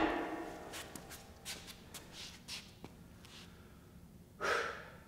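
Steel storage-rack beam ringing down after being knocked, followed by light clicks and rustling as it is handled. A short scrape comes about four and a half seconds in.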